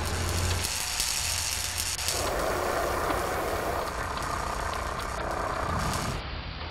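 Sparks and flame hissing and crackling, growing fuller about two seconds in.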